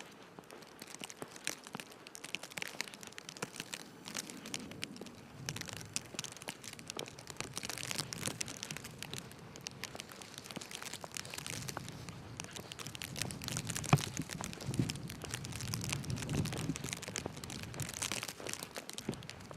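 Footsteps crunching in snow, an irregular run of crisp crackles with soft low thuds underneath.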